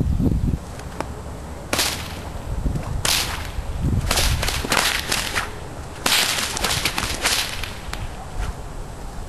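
Whip cracks: a few single sharp cracks, then quick volleys of several cracks in a row as two whips are cracked in turn.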